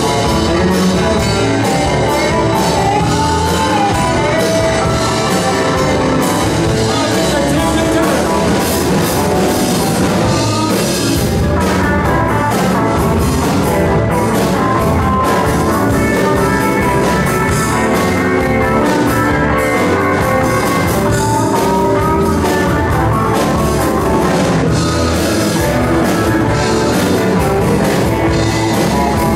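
Live rock band playing on electric guitars, keyboard, drums and saxophones, with a singer, loud and steady throughout.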